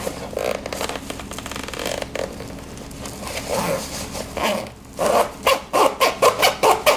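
Backpack zipper being pulled open and shut, with scratchy zipping for several seconds, then a run of short, quick zips back and forth, about three or four a second, near the end.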